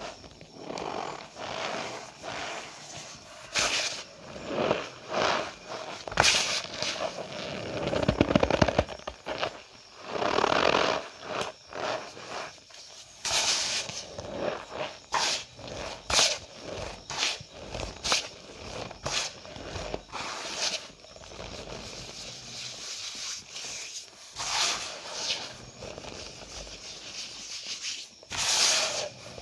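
Cornstarch powder squeezed and crushed by hand, giving irregular squeaky, crunching squeezes about one every second or two, with one longer creaking squeak a third of the way in.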